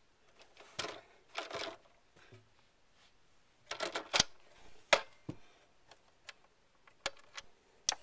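Hard plastic clicks and short rustling scrapes as the handset of a corded push-button desk telephone is lifted off its cradle and the coiled handset cord's modular plug is unplugged. There are several separate sharp clicks, the last few spaced out near the end.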